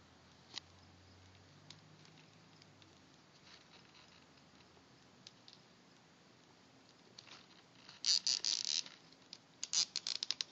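Plastic zip tie pulled tight by hand through its ratchet: a few faint handling clicks, then a burst of rapid clicking about eight seconds in and a quick run of sharper clicks near the end.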